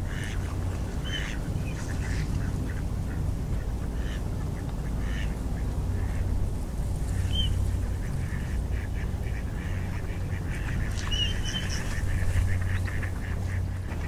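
A flock of wild ducks calling on a lake: scattered short quacks and a few brief whistled calls, busiest near the end, over a steady low rumble.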